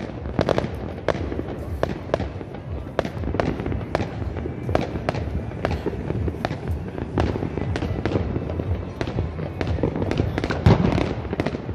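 Street fireworks and firecrackers going off all around: a dense, irregular run of sharp bangs and crackles, with one louder bang near the end.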